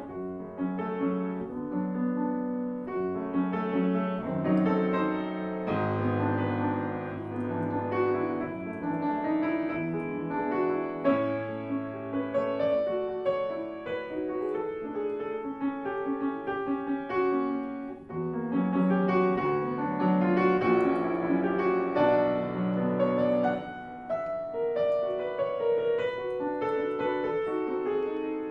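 Grand piano played solo: a classical piece in a continuous stream of notes, with low bass notes held at times.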